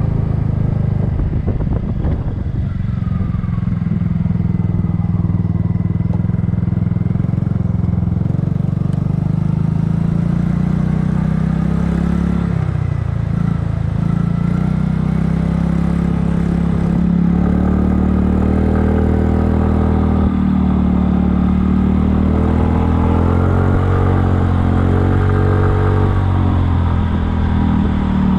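Kymco People scooter's single-cylinder engine and exhaust running under way, its pitch rising and falling with throttle, with a brief dip about halfway through before it picks up again.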